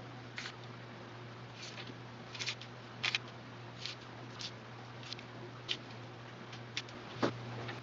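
Fine craft-knife blade cutting through a sheet of flattened barley straw, heard as short, irregular scratching strokes about once or twice a second, the loudest near the end, over a steady low hum.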